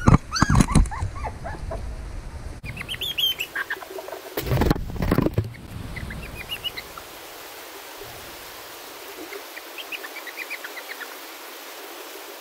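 Young puppies whimpering in short, bending cries during the first second or so, then a louder burst of noise about four and a half seconds in. After that come scattered small high chirps over a quiet background.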